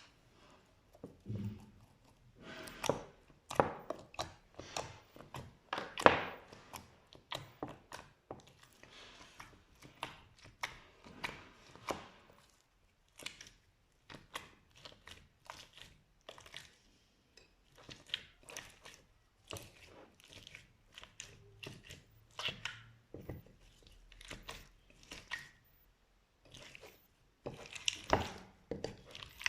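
Slime being squished and pressed by hand: an irregular run of short crackles and pops, with the sharpest snap about six seconds in and a dense flurry near the end.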